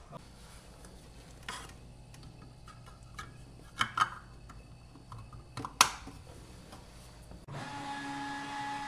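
Scattered sharp clicks and knocks of mechanical handling over a low steady hum, then a steady whirring machine noise with a fixed tone that starts suddenly near the end.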